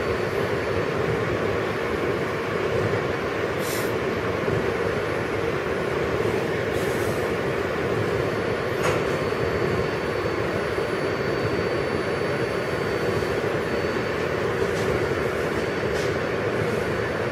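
R160B subway train standing at the station with its doors open, its ventilation and on-board equipment running with a steady whir. A few faint ticks sound over it.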